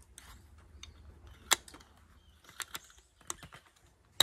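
A handful of sharp clicks as a CCI Mini-Mag .22 LR cartridge is handled and pressed into a CBC 7022 rifle's box magazine. The loudest click comes about a second and a half in.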